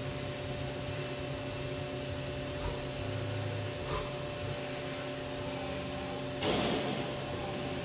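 Haas VF-1 CNC vertical machining center running, its table traversing on the axis drives: a steady hum with a pulsing low rumble. A short, loud hiss comes about six and a half seconds in.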